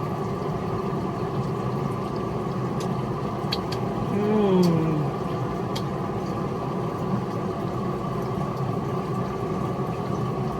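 Steady mechanical hum, like an idling engine or running motor, holding several tones at an even level. About four seconds in a voice makes a short hummed 'mm', and a few faint clicks sound.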